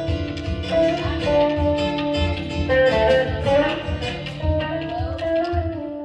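Live contra dance band playing a tune: guitar with a held, stepping melody line over a low pulsing accompaniment.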